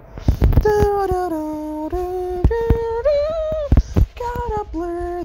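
A voice humming a tune in held notes that step up and down, with several sharp knocks in between.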